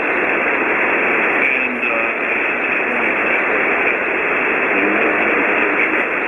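Steady hiss of 40-meter band noise from a ham radio receiver on single sideband, cut off sharply above the voice passband. Faint, garbled voice traces show through the hiss now and then.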